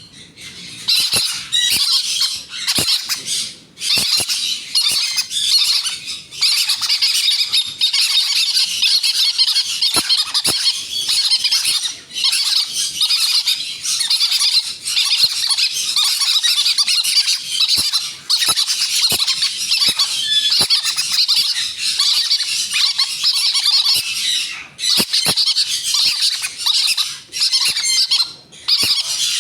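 Green-cheeked conure chicks squawking almost without a break while being hand-fed, a harsh raspy food-begging call interrupted only by short pauses, with scattered small clicks.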